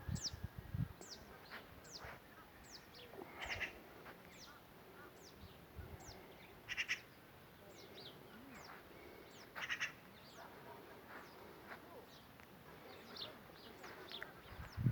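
Wild birds calling: a steady run of short, high chirps that each sweep downward, with a louder, harsher rasping call about three times, a few seconds apart.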